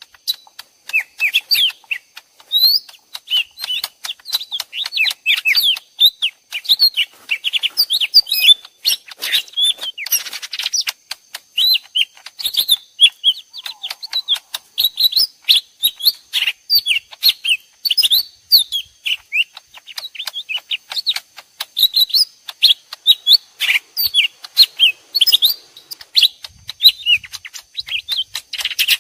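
Two cucak ijo mini (lesser green leafbirds) calling back and forth in dense, quick, high chirps and twittering phrases, as if fighting: a recording mixed to serve as a lure call for trapping leafbirds.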